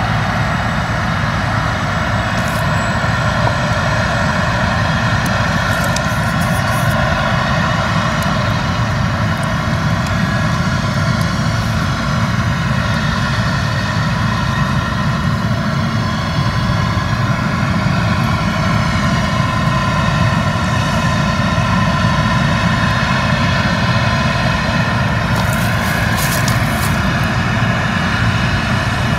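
Claas Lexion combine harvester working through standing wheat: a steady drone of engine and threshing machinery with a many-toned hum.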